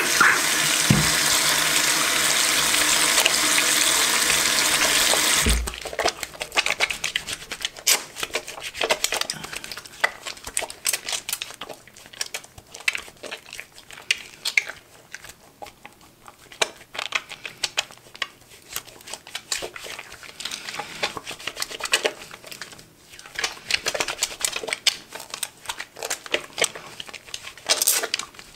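Tap water running into a sink, which stops suddenly after about five and a half seconds. After that, wet soapy hands rub together, squelching and crackling irregularly as they lather.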